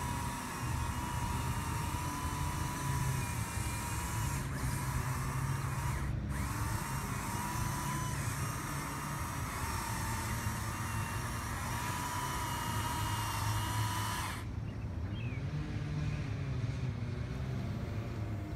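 Small electric drive motors and plastic gearboxes of toy RC crawlers whining as they climb, the pitch wavering with the load. The whine cuts off sharply about fourteen seconds in.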